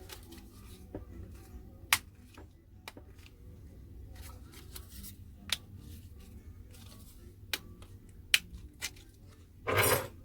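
Small sharp clicks and taps of tools and plastic and metal parts being handled while a smartphone is taken apart, a handful of scattered clicks, then a short scraping rustle near the end.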